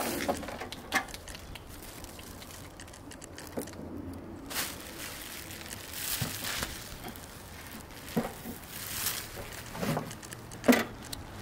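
Clear plastic bag crinkling and rustling as it is pulled off a tabletop griddle, with a few sharper knocks scattered through, the loudest near the end.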